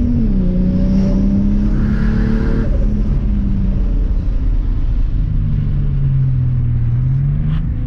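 Lexus SC300's swapped-in turbocharged 2JZ-GTE straight-six running through a Blitz Nur-spec exhaust, heard from inside the cabin while driving. The engine note falls right at the start as the throttle comes off, holds, drops lower and settles from about three seconds in, then rises slightly near the end.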